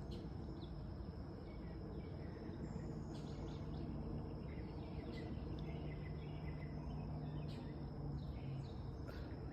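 Faint outdoor ambience: a constant high insect whine, scattered short bird chirps, and a steady low hum underneath.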